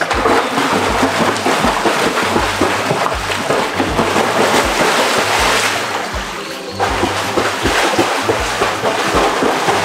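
Water splashing in a swimming pool, easing off briefly about six seconds in, over background music with a steady beat.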